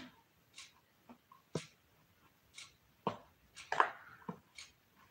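Metal spoon scraping and pushing damp coconut-coir substrate across the bottom of a plastic tub, in short irregular strokes.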